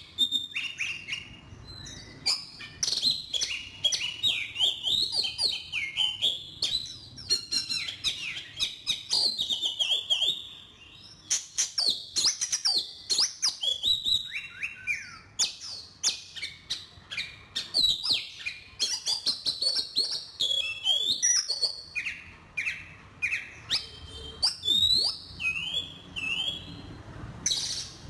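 Oriental magpie-robin singing: a quick, varied run of clear whistled notes and chirps, many sliding up or down in pitch, in phrases broken by short pauses.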